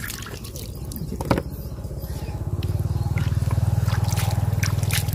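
A small knife prying open a shellfish: sharp clicks of blade on shell, one louder about a second in, with water dribbling out of the shell. Under it a low pulsing hum grows louder from about halfway through.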